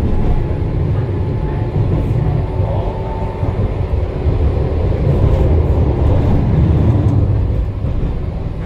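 Tram running along its track, heard on board: a steady low rumble of wheels on rails and running gear. A faint high whine fades out about three and a half seconds in.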